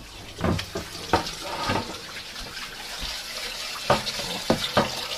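Kitchen tap running into a sink, a steady hiss of water, with a few short knocks of things handled in or near the sink.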